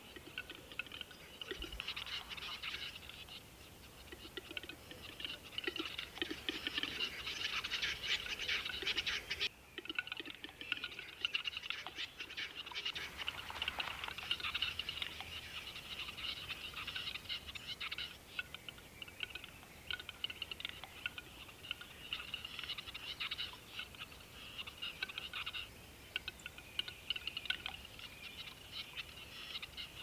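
A dense, continuous chorus of high clicking and chattering animal calls, with a few lower calls in the first seconds and a brief change in the mix about ten seconds in.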